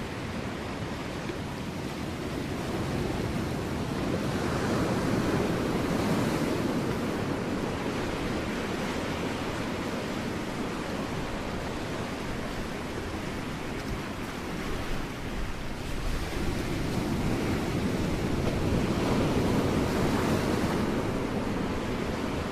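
Ocean waves breaking on rocks: a continuous wash of surf that swells twice, about four seconds in and again near the end.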